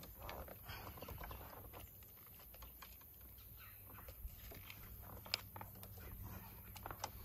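Faint handling sounds of unhooking a small largemouth bass: scattered light clicks and rustling, with one sharper click about five seconds in.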